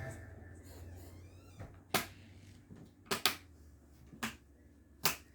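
A few short sharp knocks and clicks, a second or so apart, over a low steady hum.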